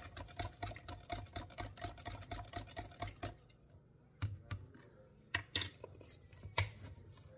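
A spoon stirring instant coffee in a cup, clinking quickly and evenly against the sides at about five clinks a second. The stirring stops a little over three seconds in, followed by a few separate clinks.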